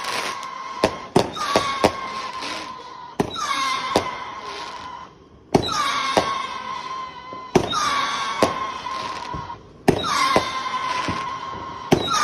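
Firework shots going off about every two seconds. Each is a sharp pop followed by a whistle that dips slightly in pitch and then holds for a second or so, with crackling around it.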